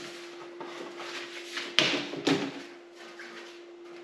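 Off-camera handling sounds, faint rustling and clicks with two sharp knocks about two seconds in, half a second apart, over a steady low hum.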